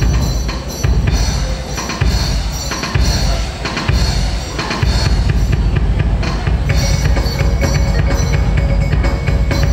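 Dance music driven by heavy drumming and a deep bass beat, the beat growing denser and more even about halfway through.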